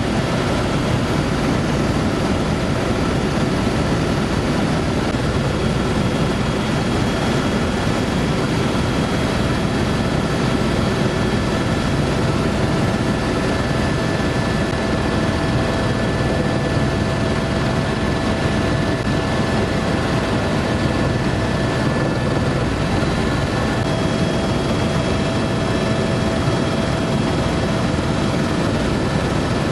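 Helicopter in flight, heard from inside the cabin: a steady, loud engine and rotor noise with a faint steady whine on top.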